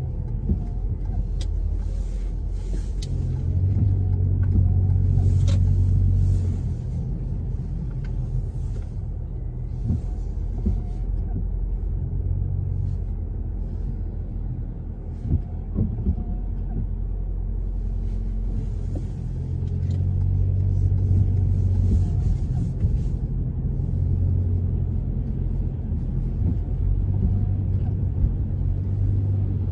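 Car cabin noise while driving on a wet road: a steady low rumble of engine and tyres that swells and eases a few times, with a few faint clicks.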